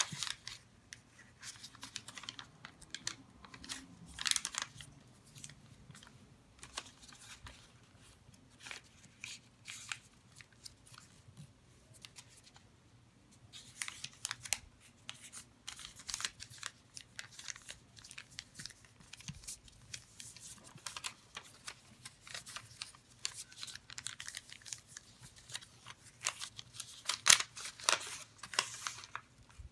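A sheet of origami paper being folded and creased by hand: irregular crisp rustling and crinkling as fingers press and run along the folds, loudest near the end.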